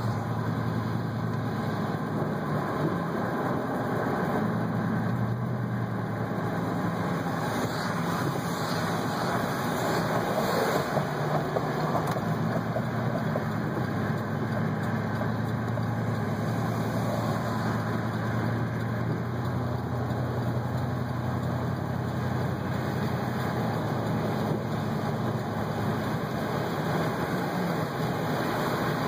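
Steady cabin noise of a car driving on a wet highway: low engine hum and tyre noise on wet pavement, with a hiss that swells briefly about eight to eleven seconds in.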